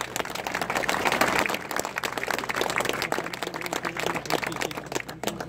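Crowd applauding: many hands clapping irregularly, thinning slightly near the end.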